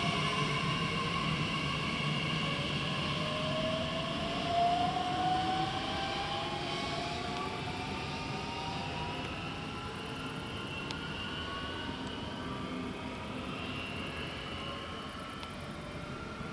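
Bombardier Talent 2 (class 1442) electric multiple unit pulling away and accelerating. Its traction drive gives a whine of several tones rising in pitch together over a low rumble, fading slowly as the train recedes.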